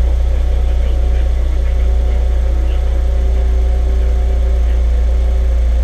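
Audi TT Mk1's rebuilt engine idling steadily. It runs evenly, with the knock from two misfiring cylinders cured by replacing the spark plugs.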